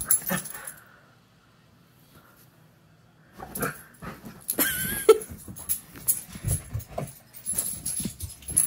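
Dog whimpering with a short high whine, amid scuffling of paws on a fabric bedspread. A short quiet stretch comes about one to three seconds in.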